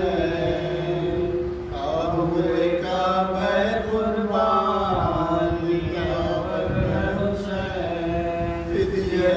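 Marsiya being chanted: a Urdu elegy recited in a slow, sustained melodic chant, with long held notes that glide between pitches.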